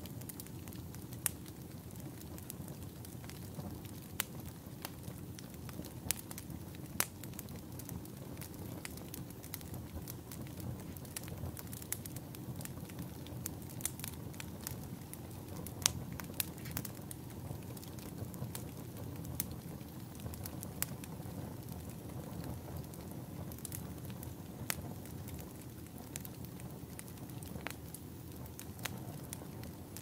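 Burning firewood in a campfire crackling: a steady low rumble with sharp pops and snaps at irregular intervals.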